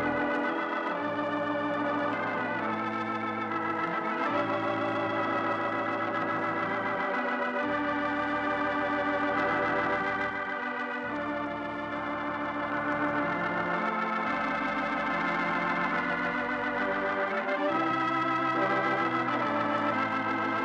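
Organ music: slow held chords with a slight waver, over bass notes that change every few seconds.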